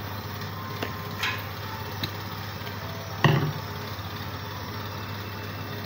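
A steady low hum, with a few light clicks and one louder knock a little over three seconds in, from things being handled on a kitchen counter beside a plastic mixing bowl.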